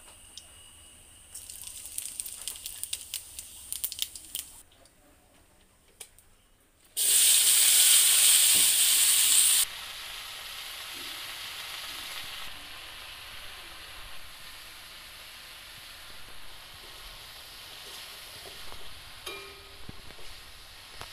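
Oil crackling and spitting in a hot wok, then, about seven seconds in, a loud burst of sizzling lasting nearly three seconds as cut water lily stems hit the oil. It settles into a steadier sizzle while the stems are stirred with a spatula.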